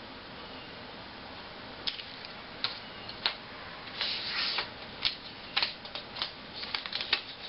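Adhesive tape and paper being handled by hand: irregular crisp crackles and clicks, starting about two seconds in and growing busier toward the end.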